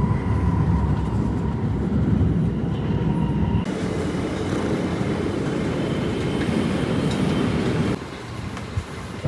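Metro train running, heard from inside the car: a heavy low rumble with a steady motor whine. About four seconds in it switches abruptly to a loud rushing noise, which drops away shortly before the end.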